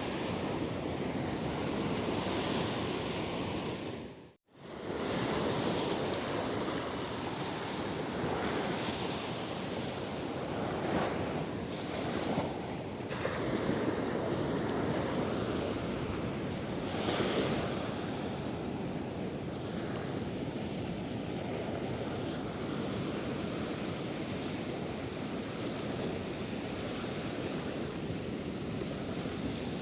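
Sea waves washing against a breakwater, with gusty wind buffeting the microphone. A few waves swell louder around twelve and seventeen seconds in, and the sound cuts out almost completely for a moment about four seconds in.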